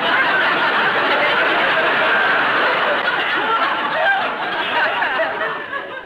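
Studio audience laughing, a dense, steady wave of laughter that dies down near the end.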